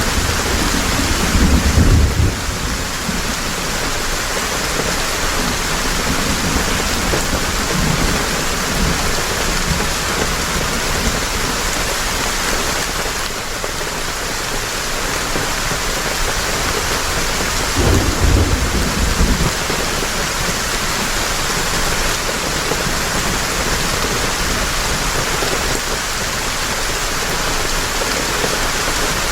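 Heavy rain falling steadily, with two low rumbles of thunder: one at the start lasting about two seconds, and another about eighteen seconds in.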